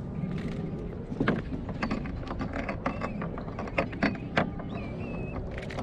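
Irregular clicks, knocks and rattles of fishing tackle and kayak fittings being handled while a small halibut is lifted aboard and gripped for unhooking, with a couple of short squeaks.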